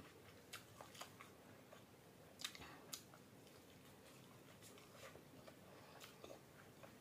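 Faint mouth sounds of a person eating egg and rice by hand: soft chewing with scattered short lip smacks and clicks, the sharpest a little past two and a half and at three seconds.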